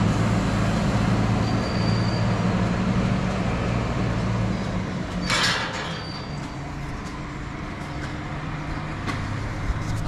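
An engine running steadily, its hum easing off after about five seconds, with a short hissing burst about five seconds in.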